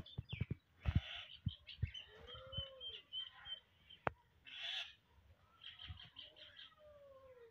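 Birds calling: a run of quick high chirps two to three seconds in, a few longer calls that arch up and down or slide down in pitch, and three short harsh calls, with scattered light knocks.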